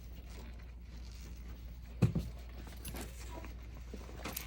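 Wires and connectors being handled during wiring work: scattered small clicks and rustling, with a louder knock about two seconds in and a few sharper clicks near the end, over a low steady hum.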